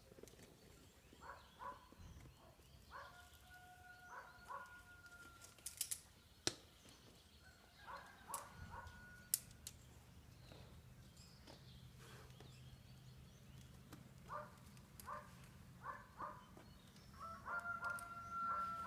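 Faint distant animal calls: groups of short repeated notes and a few longer held tones, with a handful of sharp clicks in the middle.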